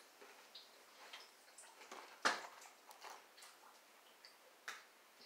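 Faint small clicks and light rustles of a small plastic doll and its tiny outfit being handled while it is dressed, with one sharper click a little over two seconds in.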